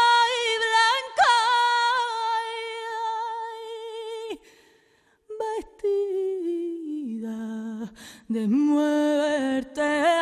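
A solo voice singing unaccompanied, slow and with vibrato: one long held note, a brief pause about four seconds in, then a phrase of lower notes that falls and rises again.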